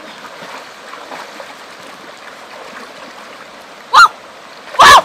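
Shallow stream water trickling and gurgling steadily, then near the end a woman's two short, loud, high-pitched cries, the second about a second after the first and louder.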